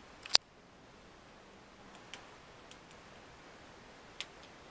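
Small clicks from hands working inside an opened Dell 3100 Chromebook, as its ribbon-cable connector latches are released: one sharp click just after the start, then four faint ticks.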